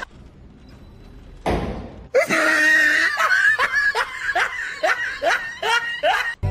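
A person laughing in a run of short rising 'ha' sounds, about two a second, starting about two seconds in after a brief rush of noise.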